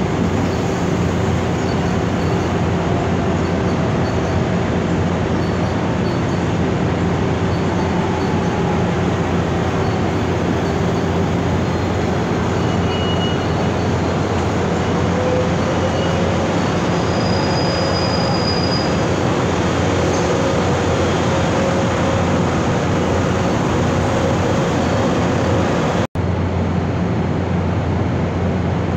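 Electric commuter train running along the station tracks, a steady rumbling noise with a few faint, brief wheel squeals partway through. The sound cuts out for an instant near the end.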